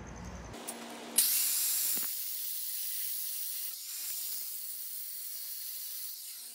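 Angle grinder with a thin cut-off disc cutting through two upright steel chain links clamped in a vise. The cut bites in sharply about a second in, then runs as a steady, high-pitched hissing grind until it drops away near the end.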